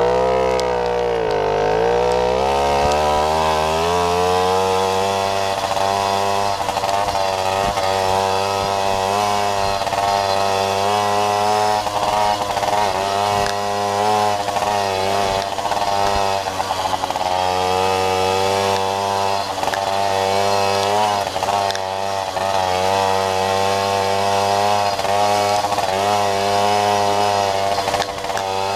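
Jawa Babetta moped's 50 cc two-stroke single-cylinder engine running under way, its revs dropping about a second in, then climbing and rising and falling over and over.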